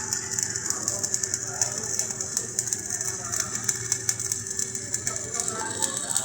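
Electric welding arc crackling and sizzling steadily over a steady hum. The crackle stops abruptly at the very end.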